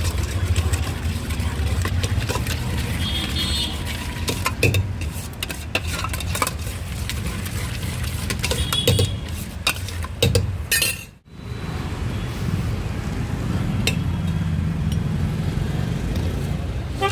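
Steel ladle stirring and scraping a sev and chutney mixture in a stainless-steel bowl, with repeated metal-on-metal clinks, over a steady low rumble of street traffic. The sound briefly drops out about two-thirds of the way through.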